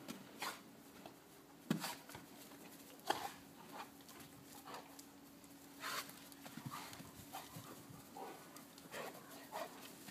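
A Rottweiler playing with a knotted rope toy: irregular short knocks and scuffs of its paws and the toy, with a few short dog noises. The sharpest knocks come about two, three and six seconds in.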